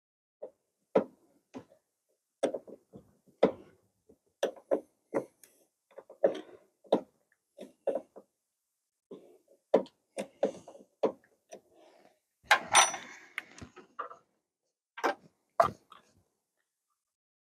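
Small hand ratchet loosening the clamp nut on a truck battery cable terminal, with a cable end being worked off its post: irregular clicks and metal clinks, one or two a second, with a longer rattle about two-thirds of the way through.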